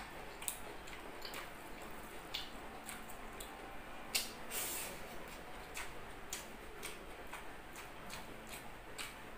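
Fingers picking off curly lettuce leaves and bits from a mound of rice on a food tray: faint, scattered small clicks and soft rustles, with a brief crinkly rustle about four seconds in.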